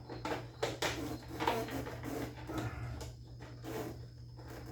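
Irregular clicks and knocks of hand tools against scooter parts as a stubborn fastener is worked loose, over a steady low hum.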